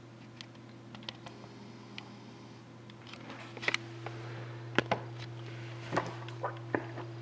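Handling noise: a scatter of light clicks and knocks as a sealed hockey card box and the camera are moved about. The knocks grow louder in the second half, over a steady low electrical hum.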